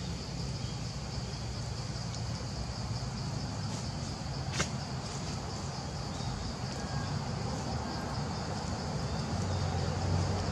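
Outdoor ambience of insects chirring in a steady, high, faintly pulsing drone over a low steady rumble, with one sharp click about four and a half seconds in.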